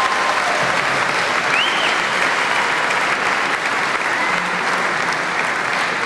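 An audience applauding steadily, the clapping easing slightly near the end.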